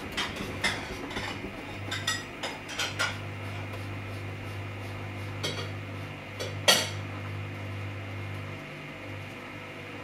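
Samsung Eco Bubble front-loading washing machine running with a steady low hum as the drum turns the laundry. Irregular clinks and knocks come from inside the drum, several in the first three seconds and the loudest a little under seven seconds in.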